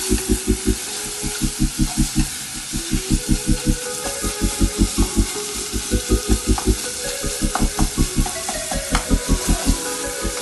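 Food sizzling as it fries in oil in an aluminium pressure-cooker pan, stirred with a wooden spatula. A steady, fast, pulsing beat of background music runs underneath.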